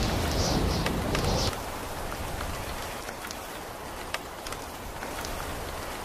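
Steady rain falling on sandy ground, a continuous hiss with scattered individual drops ticking sharply. A low rumble underneath during the first second and a half drops away abruptly.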